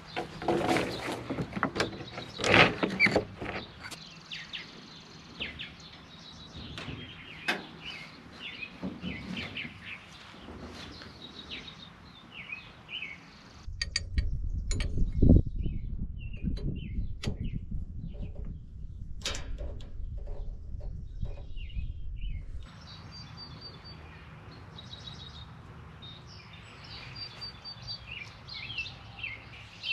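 Birds chirping, with scattered knocks and clunks. A steady low rushing noise comes in suddenly about fourteen seconds in and cuts off about nine seconds later.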